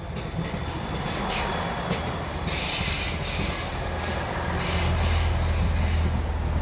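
A Class 166 diesel multiple unit runs slowly into the platform close by with a rolling rumble and high squealing from the wheels and brakes. A low diesel engine hum grows louder near the end as the cab end draws level.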